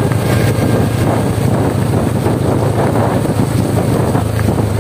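Motorcycle engine running steadily while riding at constant speed, with wind rushing over the microphone.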